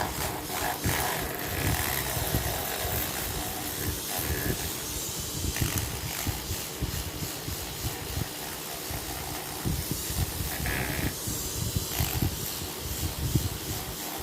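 Coarse 80-grit sandpaper scraping over a metal steering knob: a steady scratchy hiss broken by uneven scraping strokes.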